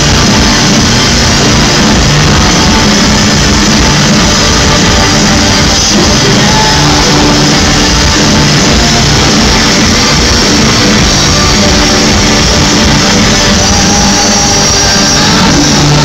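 A rock band playing live through an arena PA, very loud, with a steady beat, heard from within the standing crowd.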